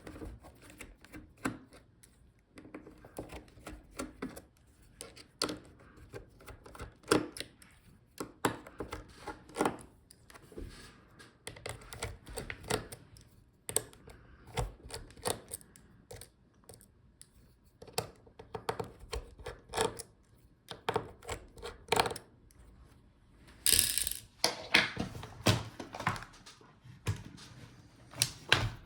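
Irregular small clicks and taps of a screwdriver working a laptop's hinge screws and of its plastic and metal parts being handled, with a denser run of clicks about 24 seconds in.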